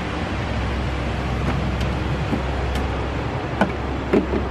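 Steady rushing background noise, with two light knocks about three and a half and four seconds in as the wooden trail-register box and its logbook are handled.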